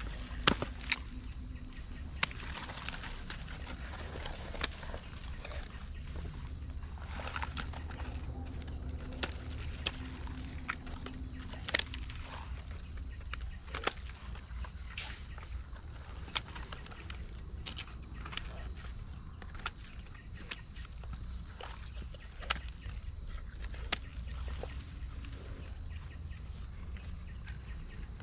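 Scissors snipping twigs and stems: sharp, irregular clicks, a few of them louder, over a steady high-pitched insect drone.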